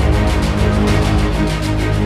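Background music with a fast, steady beat over held bass notes.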